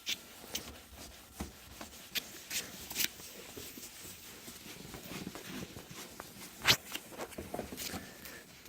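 Hand-polishing of a foggy plastic headlight lens: a cloth rubbing irregularly, with scattered light clicks and taps and one sharper click about two-thirds of the way through.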